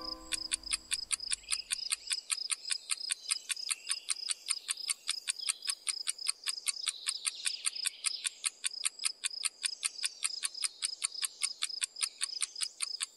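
Rapid, even chirping of a calling insect, about five chirps a second, with a steady high tone underneath.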